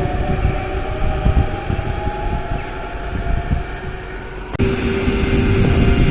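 Variable-frequency (inverter) traction drive of a French SNCF double-deck electric train whining as it runs, several tones sliding slowly in pitch over the rumble of the train. About four and a half seconds in, the sound changes abruptly to a steadier hum.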